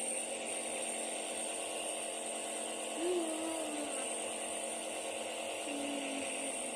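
A small electric motor running steadily with an even hum, joined by two brief faint voice sounds about three and six seconds in.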